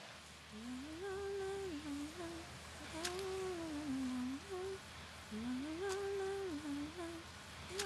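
A voice humming a simple wordless tune, the same short phrase twice, sliding up into each phrase and holding its notes. Three faint clicks fall around it.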